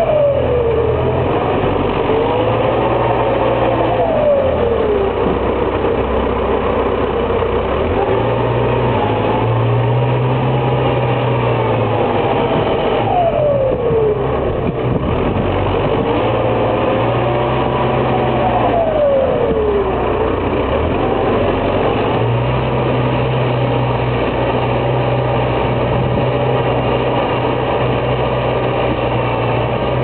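Belarus MTZ 952.3 tractor's four-cylinder diesel engine working hard under the load of a three-furrow plough in wet ground. Its pitch sags several times, dragged down by the load, and climbs back.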